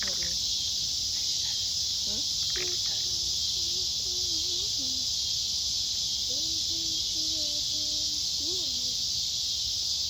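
Steady chorus of insects, cicadas or crickets, making a continuous high-pitched buzz that never lets up.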